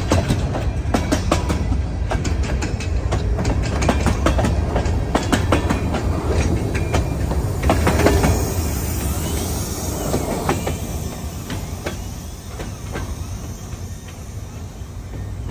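Wisconsin & Southern freight train cars rolling by, their wheels clacking over the rail joints over a steady rumble. The clatter thins out and fades after the middle as the end of the train passes.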